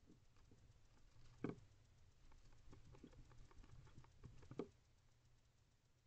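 Faint scratching and light tapping from a barn owl shifting about inside a wooden nest box, with two louder knocks, one about a second and a half in and another about three seconds later.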